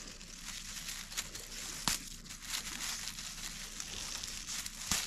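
Dry grass and dead leaves rustling and crackling as a hand pulls leafy wild greens from the ground. There are two sharp snaps, about two seconds in and near the end.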